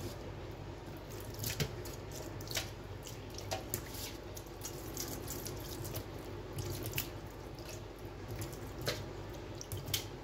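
Thin stream of tap water running from a kitchen faucet into a stainless steel sink, a steady splashing with scattered sharp drip-like ticks.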